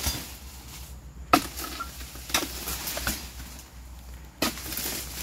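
Sharp chopping strikes of a long-pole harvesting cutter biting into the base of oil palm fronds, about five blows, the loudest about a second and a half in. Near the end comes a longer rustling crash.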